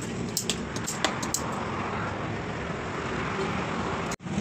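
Steady street traffic noise, with a few sharp clicks or taps in the first second and a half. The sound cuts out abruptly for a moment near the end.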